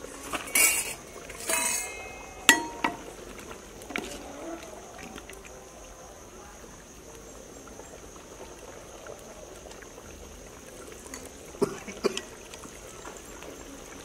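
Stainless-steel tumblers clinking against a steel plate, several sharp ringing clinks in the first three seconds and a couple more about twelve seconds in, with soup ladled from the pot and poured into the tumblers.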